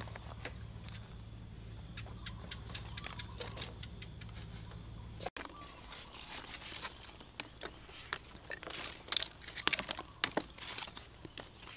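Wood fire of sticks and dry leaves crackling in a clay stove: irregular sharp pops and snaps, growing more frequent after about five seconds as the kindling catches.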